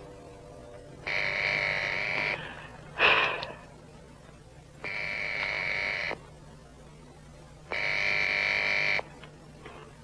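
Telephone ringing: three rings, each a little over a second long and about three seconds apart. There is one short, louder noise about three seconds in, between the first and second rings.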